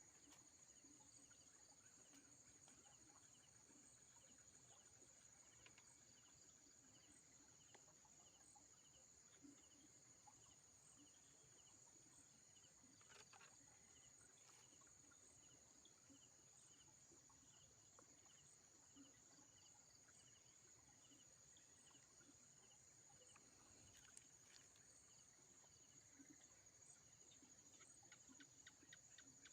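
Faint night insects: a steady high-pitched trill with a softer chirp repeating about three times a second, and a couple of soft clicks.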